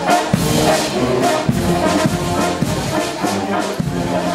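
Bavarian brass band (Blaskapelle) playing as it marches along the street: sustained brass chords over a regular drum beat.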